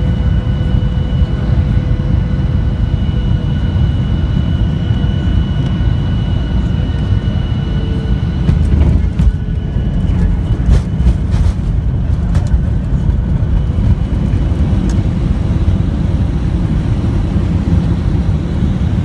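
Cabin sound of a Boeing 737-900ER landing, with its CFM56-7B turbofans and the rushing air giving a loud steady rumble under a steady engine whine. About halfway through it touches down: the whine drops away, a few knocks and rattles come through the cabin, and the rumble carries on as the spoilers go up for the rollout.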